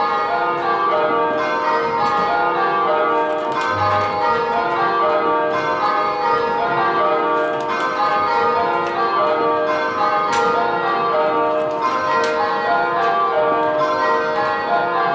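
A ring of church tower bells rung full-circle by hand, striking one after another in a steady unbroken sequence. The ringing is kaleidoscope (dynamic pairs) change ringing, where pairs of bells swap places at a handstroke.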